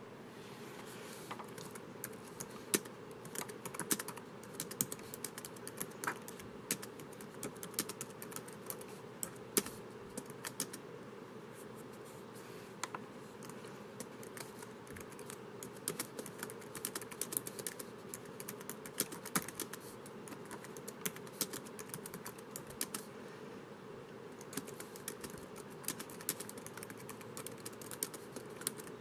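Typing on a laptop keyboard: quick, irregular key clicks in runs, with a few short pauses, over a faint steady hiss.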